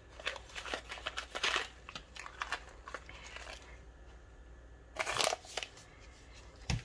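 Crinkling and rustling of a small sealed plastic sachet being pulled open and a plastic parts frame being taken out of it, in short irregular bursts, with a louder crinkle about five seconds in.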